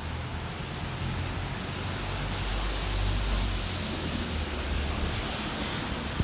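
Traffic passing on a wet city street: a low engine rumble and tyre hiss that build up about two seconds in and ease off near the end.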